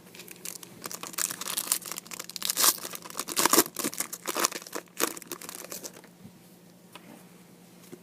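Foil wrapper of a trading-card pack being torn open and crinkled, a dense run of crisp crackles that is loudest a few seconds in and dies down to light handling near the end.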